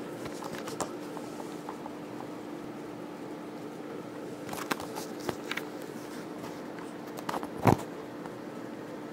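Steady low hum of room noise, with scattered soft clicks and one louder bump about three-quarters of the way through: handling noise as the camera is moved.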